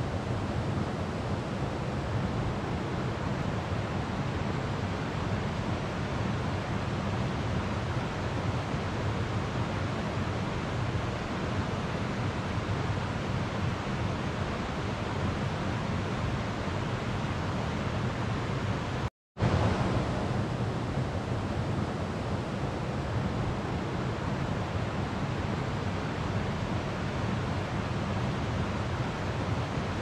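Steady rushing of a slow-flowing river, an even wash of water noise with a low rumble beneath it. It breaks off into a moment of silence about two-thirds of the way through, then resumes unchanged.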